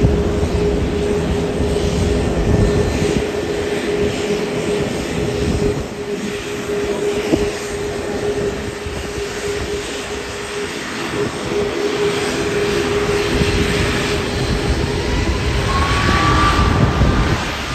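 Jet airliner engines running, a steady whine over a low rumble. Near the end a second, higher tone rises briefly.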